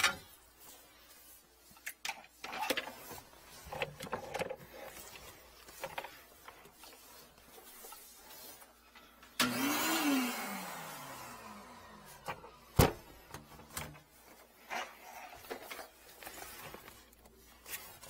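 A small electric motor switches on briefly about nine seconds in. Its whine rises for a moment, then winds down over about two seconds. Scattered knocks and clicks of handling come around it, with one sharp click shortly after.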